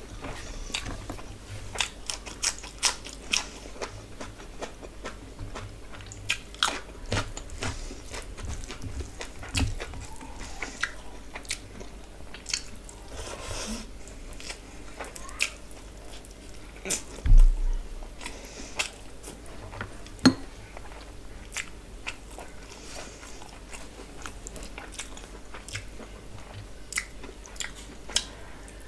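Close-miked eating by hand: chewing and biting with many sharp wet clicks and smacks of the mouth, along with fingers squishing biryani rice and curry on the plate. A single loud low thump comes about 17 seconds in.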